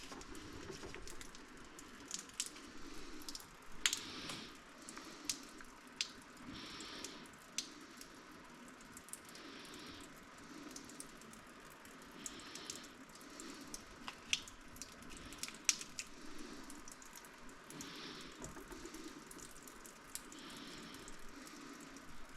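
Water dripping and dribbling from an opened household water-line fitting as the pipes drain, with irregular sharp drips over a faint trickle.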